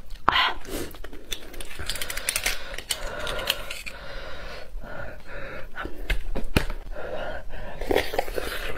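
Close-miked eating sounds: chopsticks scraping and clicking inside a cut beef marrow bone, then wet sucking of the marrow from the bone and chewing, with many sharp little clicks throughout.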